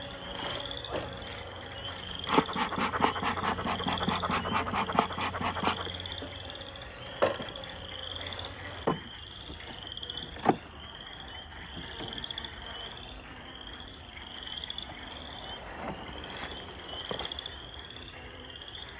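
Frogs calling: a short high chirp repeated over and over, with a louder rapid rattling series starting about two seconds in and lasting some three seconds, and a few sharp knocks around the middle.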